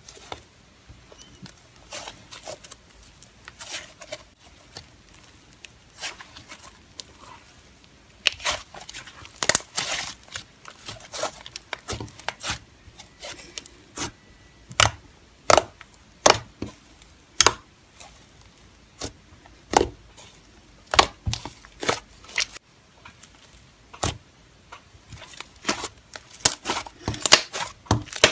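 Thick yellow slime being squeezed, folded and poked by hand on a hard tabletop, giving sharp irregular pops and clicks as trapped air is pressed out of it. There are roughly one or two pops a second, coming thicker and louder after the first few seconds.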